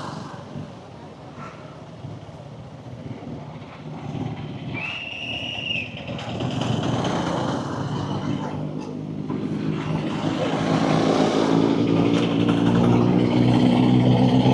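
Motorcycle ride through traffic, with a vehicle horn honking once for about a second around five seconds in. Then a motorcycle engine gets louder and rises in pitch as it accelerates toward the end.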